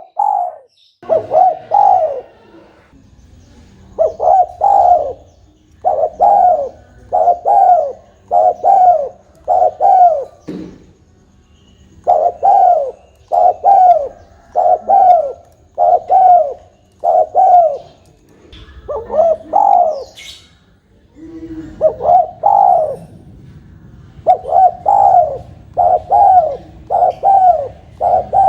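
Spotted dove cooing over and over: runs of several coo notes, each rising and then falling in pitch, with short pauses between the runs.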